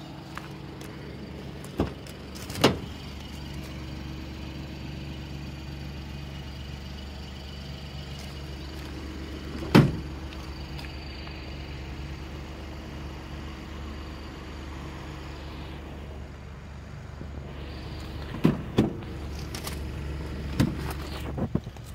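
A small hatchback's engine idling steadily, with sharp clunks of car doors and latches being opened and shut: two early, a loud one about ten seconds in, and several more near the end.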